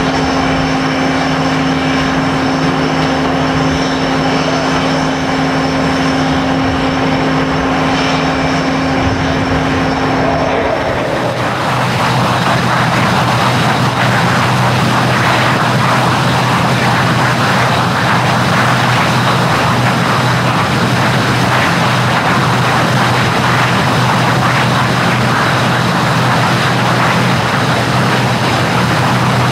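A ground power cart's engine running, a steady hum with fixed tones. About eleven seconds in, after a cut, the Canadair Sabre's turbojet is running at idle on the ground: a steady rushing roar with a low hum under it.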